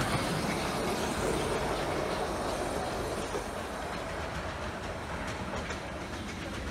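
A 15-inch gauge miniature steam train, hauled by the Mountain-class 4-8-2 locomotive Hercules, rolling away along the track, its running noise fading steadily as it draws off.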